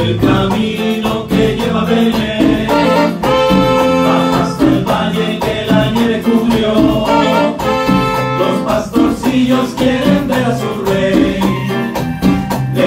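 Live band playing an upbeat Latin Christmas tune, with trumpet and saxophone lines over drum kit, congas, electric guitar and keyboard.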